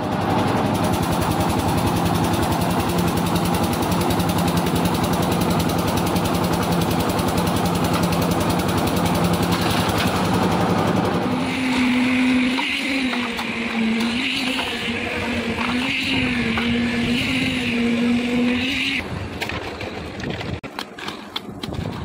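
Concrete mixer machine's engine running steadily and loudly. From about halfway, a wavering whine that rises and dips about once a second joins it for several seconds, and the running dies down near the end.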